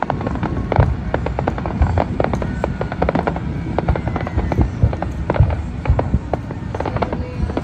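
Fireworks display: dense, irregular crackling and popping of bursting shells, with a few deeper booms among them.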